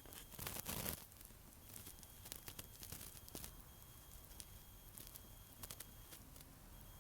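Faint rustling and crackling, loudest in a burst about half a second in, then scattered light clicks and brief rustles.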